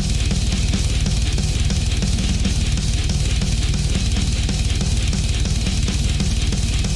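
Instrumental heavy metal with distorted guitars and very fast kick drums, so fast they sound programmed rather than played.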